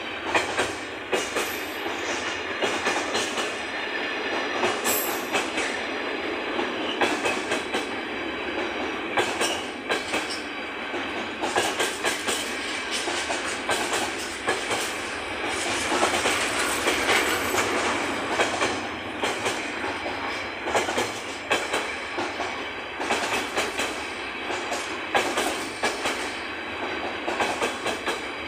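Freight train's container-laden flat wagons rolling past at close range: a steady rumbling clatter of wheels on the rails, broken by many sharp clicks as the wheels pass over rail joints.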